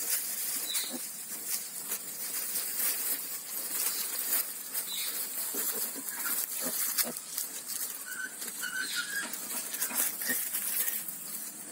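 Newborn piglets suckling at a sow: irregular small clicks and smacking sounds, with a few brief high squeaks, two close together about eight to nine seconds in.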